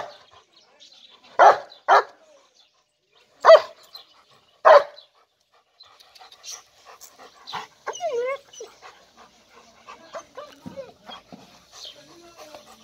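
German Shepherd barking: five loud, short barks in the first five seconds, two of them in quick succession, then only softer, scattered sounds.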